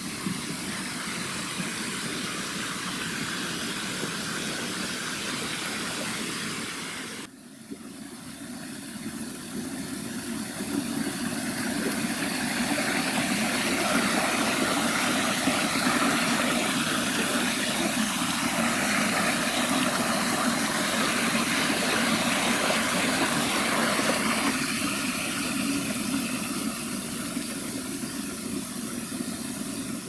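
Rushing water of a waterfall running over rock into a pool, a steady noise. It dips briefly about seven seconds in, then grows louder and holds steady.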